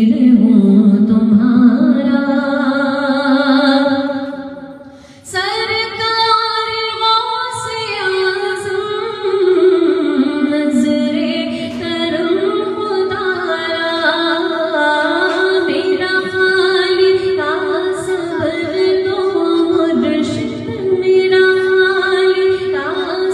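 A woman singing an Urdu manqabat, a devotional praise song, into a microphone in long, held melodic phrases. Her voice drops away briefly about five seconds in and then comes back in.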